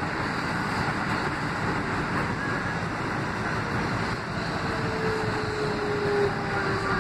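R160 subway car running on the rails, heard from inside the car: a steady rumble of wheels and running gear. In the second half a faint motor whine joins it and slides slightly lower in pitch.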